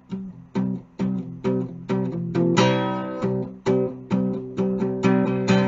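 Acoustic guitar strumming chords in a steady rhythm, about two strums a second, with no singing: an instrumental stretch of a sung theme song.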